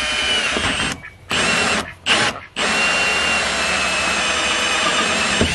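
Cordless drill spinning a hole saw through the plastic wall of an IBC tote: a steady motor whine that stops briefly three times between about one and two and a half seconds in, then runs on steadily.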